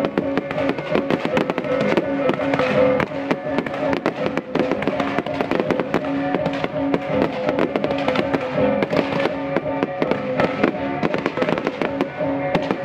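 Aerial fireworks bursting and crackling in quick succession, over music with long held notes.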